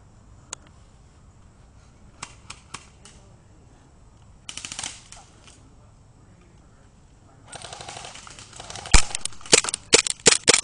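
Airsoft guns firing. A few single pops come first, then a short full-auto burst about four and a half seconds in. From about seven and a half seconds a longer full-auto rattle runs, with loud sharp cracks over the last two seconds.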